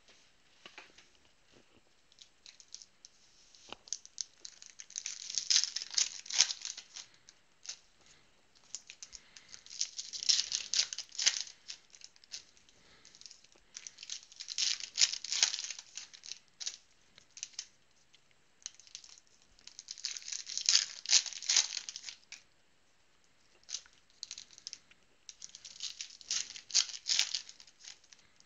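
Wrappers of 2012 Panini Prizm football card packs crinkling and tearing as the packs are ripped open. The crackling comes in five bursts a few seconds apart.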